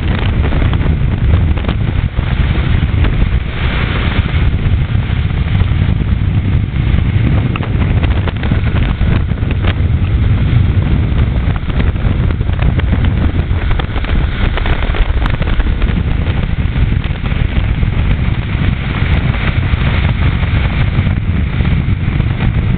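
Motorboat running at speed, with wind buffeting the microphone: a loud, steady, deep noise.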